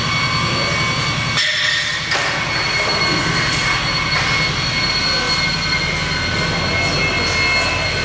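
Steady drone of construction machinery running inside the building: a low hum with several high whining tones over it, which dips briefly about a second and a half in.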